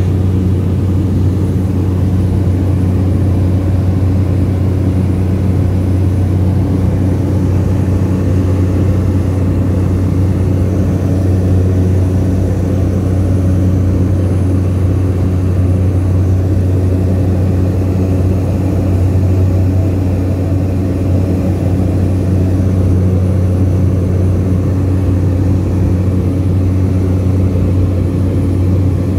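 Cabin noise of a small high-wing propeller plane in level flight: a steady, loud, low drone of the engine and propeller that never changes.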